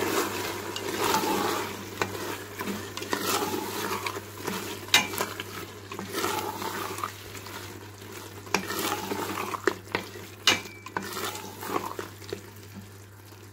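Beef mince and diced potatoes sizzling as they fry in oil in a steel pot, while a plastic spatula stirs and scrapes them around in repeated strokes, with a few sharp clicks of the spatula against the pot.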